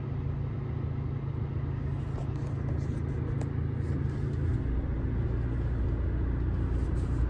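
Engine running steadily with a low hum; about four and a half seconds in its tone shifts lower and heavier.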